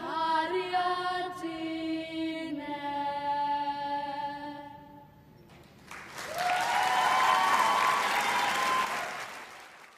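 A girls' vocal ensemble singing unaccompanied, holding its final chord, which fades out about five seconds in. An audience then applauds for about four seconds.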